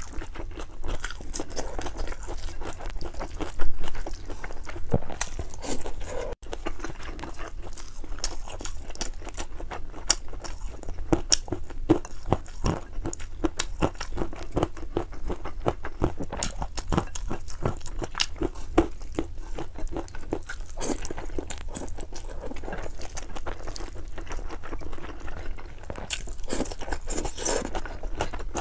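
Close-miked eating sounds: a person chewing and crunching food, a dense, continuous run of small wet clicks and crunches.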